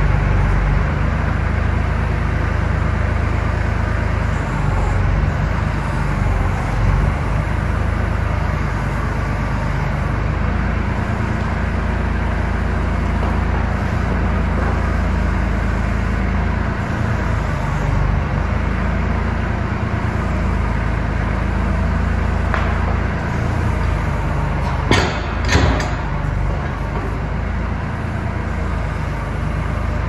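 Kubota L39 backhoe's diesel engine running steadily as the backhoe works the thumb. Near the end, a few sharp knocks as wooden blocks and a steel piece are knocked over onto the concrete floor.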